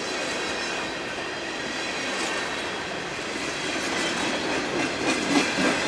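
Freight cars rolling past at speed: a steady rumble and clatter of steel wheels on the rails.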